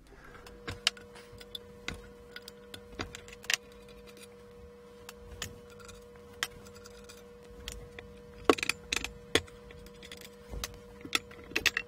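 Scattered metal clicks and light clatter of Allen bolts being undone and a metal panel being handled as it comes off the scanner's optical chassis, with a faint steady hum underneath. The clicks bunch together about two-thirds of the way through and again near the end.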